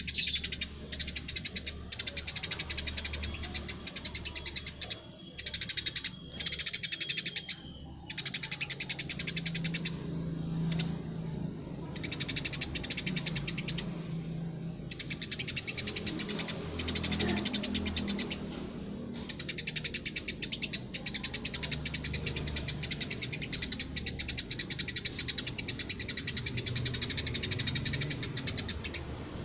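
Eurasian tree sparrow chirping rapidly and continuously, in long runs of fast, high chirps broken by short pauses.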